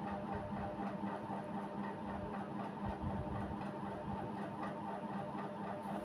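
A steady mechanical hum with a constant low tone and a higher steady whine, unchanging throughout.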